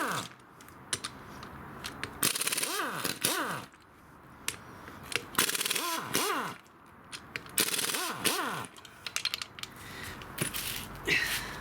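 A cordless power tool spins out the crankshaft main bearing cap bolts one after another. There are about five short rattling bursts, each with a whine that rises and falls as the motor speeds up and slows.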